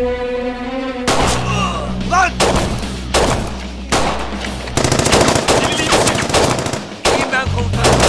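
A held music chord that breaks off about a second in, then rapid gunfire of many shots in quick succession, loud and sustained, with music low underneath.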